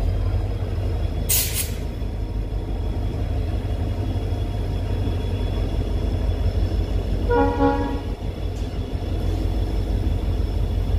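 Diesel-hauled passenger train running, a steady loud rumble of the coaches on the rails. A brief hiss comes about a second in, and a short single horn blast sounds about seven seconds in.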